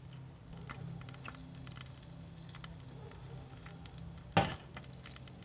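Weber charcoal kettle grill during basting: faint scattered crackles and ticks from the hot coals over a low steady hum, with one sharp knock about four seconds in.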